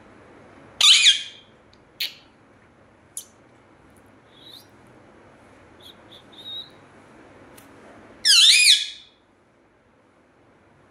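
Rose-ringed parakeet giving two loud calls, about a second in and again near the end, with a few short soft chirps and clicks in between.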